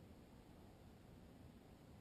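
Near silence: only a faint, steady low rumble of background noise.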